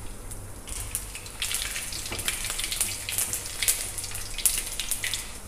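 A tempering of whole spices and garlic cloves sizzling and crackling in hot mustard oil, with scattered pops. The sizzle builds within the first second and a half.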